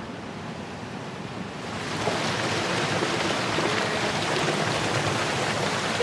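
Steady rushing of fast-flowing water, a constant hiss that grows louder and brighter about two seconds in.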